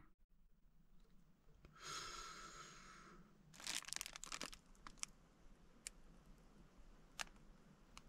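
Packaging torn open in one long rip about two seconds in, then crinkled, followed by a few light clicks.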